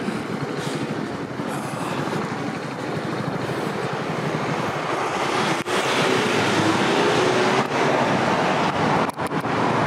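Street traffic: vehicles passing, the noise growing louder about halfway through as a vehicle's engine hum comes close.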